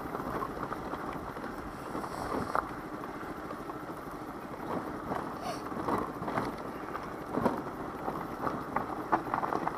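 Daelim Witty 100 scooter going downhill on a loose gravel forest road: tyres crunching and crackling over stones, with scattered clicks and rattles over a steady rumble of wind and riding noise.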